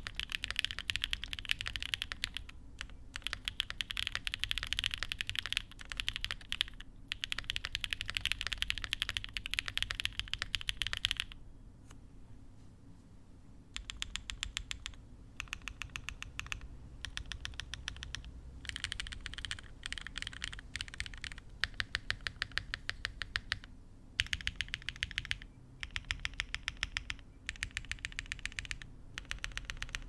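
Mechanical keyboard sound test on a Wind Studios Wind X 65 with a POM plate, lubed 63.5g Durock POM linear switches and GMK Kaiju keycaps, with a clacky, poppy sound. Fast continuous typing for about eleven seconds, then after a short pause, keys are pressed more sparingly in short runs with gaps, quieter than the typing.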